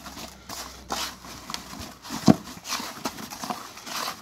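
Hand stirring and turning crumbly roach groundbait in a plastic bucket as it is first dampened with water: repeated gritty swishes of the mix against the bucket, two or three a second, with one louder knock a little past halfway.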